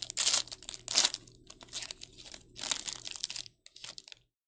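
Foil trading-card pack being torn open and crinkled by hand, in a run of sharp crackling bursts, the loudest about a second in.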